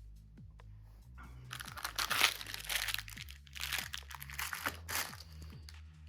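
Packaging being crumpled, crinkled and torn open by hand, in a run of crackling bursts from about a second in until near the end, loudest early on.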